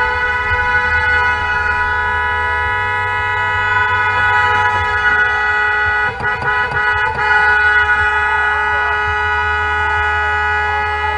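Car horn held down in one long continuous blast, with a few short stutters about six to seven seconds in, over low road and engine rumble.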